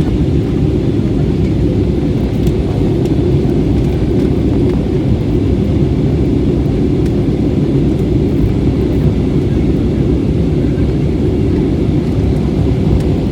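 Steady low rumble of an airliner's jet engines and rushing air, heard inside the passenger cabin shortly after takeoff.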